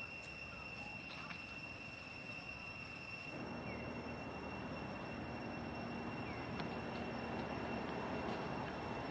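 Steady outdoor background noise: a thin high whine with an overtone at first, then from about three seconds in a louder, even rumble with a faint low hum.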